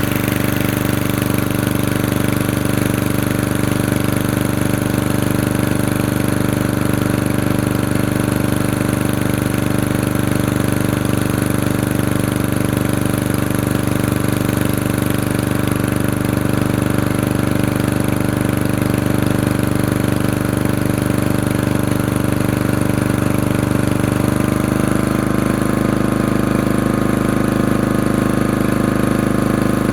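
Generator engine running steadily after months of sitting; about three quarters of the way through, its note changes a little and then holds steady again.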